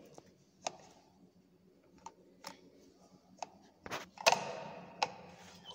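Lever switch on a torsion testing machine's starter box being worked: a few faint clicks, then sharper metallic clunks about four seconds in, the loudest ringing briefly, and one more click near the end.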